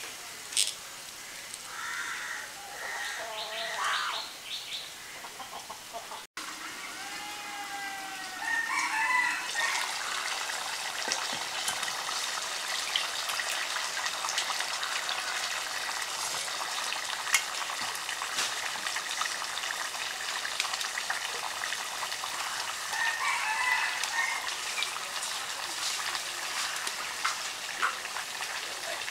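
A rooster crowing a couple of seconds in and again briefly later. From about eight seconds in, food cooking over a wood-fired clay stove makes a steady hiss with small crackles.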